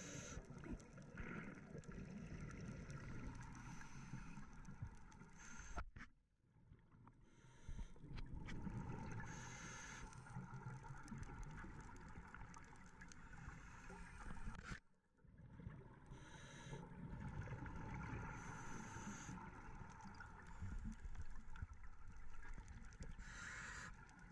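Muffled underwater sound picked up by a camera in its housing during a scuba dive: a steady rumble of water with brief hissing bursts, typical of a diver's regulator and exhaled bubbles, dropping almost to quiet twice.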